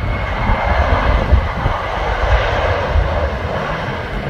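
Boeing C-17 Globemaster III's four turbofan engines rumbling as the jet lands and rolls out on the runway, with a thin steady whine over the rumble.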